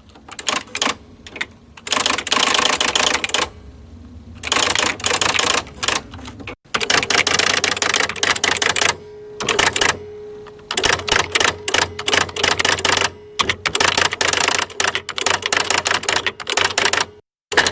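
Electric typewriter being typed on: bursts of rapid, sharp keystrikes with short pauses between them, over the steady hum of its running motor. The sound cuts out twice for a moment, about a third of the way in and near the end.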